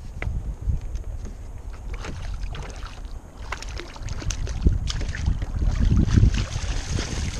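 Wind buffeting the microphone, with splashing, dripping and scattered knocks as a landing net is lifted out of the water; the wind rumble grows louder near the end.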